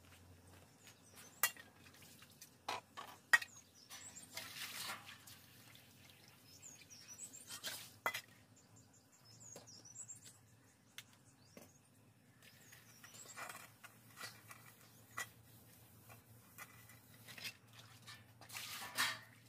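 Metal basins and pans knocking and clinking on a brick floor, with short swishes of water, as dishes are washed by hand. Small birds chirp faintly now and then.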